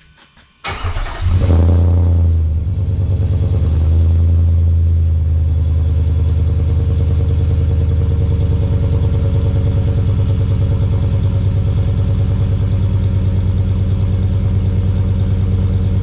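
Nissan Y62 Patrol's 5.6-litre V8 cold-starting through a Pacemaker exhaust with only a centre muffler and the secondary cats deleted: a brief crank about a second in, then it catches and flares up, and settles into a steady, loud idle.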